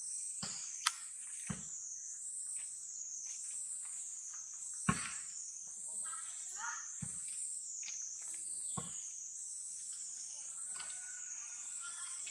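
High-pitched insect chorus droning steadily and wavering up and down in pitch about once a second. Several short knocks stand out, the loudest about five seconds in.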